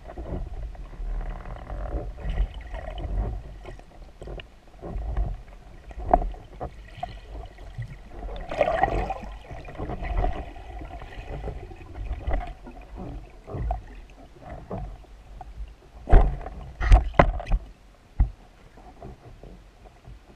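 Muffled underwater sound picked up by a camera mounted on a speargun: a low, uneven water rush as the freediver swims, with a few sharp knocks near the end.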